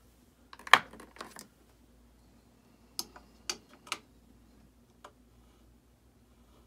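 Light clicks and taps of a reloaded rifle cartridge being handled and turned in a bullet runout gauge. A quick cluster of clicks comes about a second in, then three sharp clicks about half a second apart, and one fainter click a second later.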